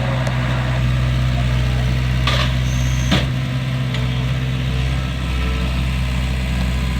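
A machine's engine running steadily, with two sharp cracks, like wood snapping, a little over two and three seconds in.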